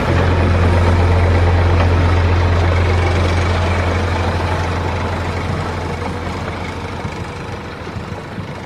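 A tractor engine idling with a steady low hum, fading gradually over the last few seconds.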